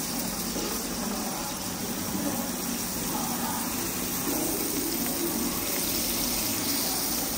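Steady sizzle of salted mackerel frying in hot oil in a pan.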